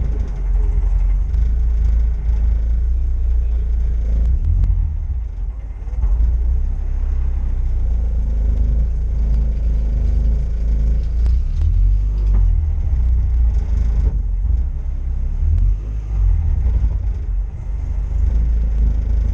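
A steady low vehicle rumble that rises and dips in level without stopping.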